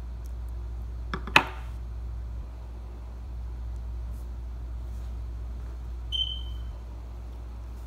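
A lighter clicks sharply twice about a second in, as it is let go after lighting the cigarillo. About six seconds in there is a short, high beep-like tone that fades quickly. A steady low hum runs underneath.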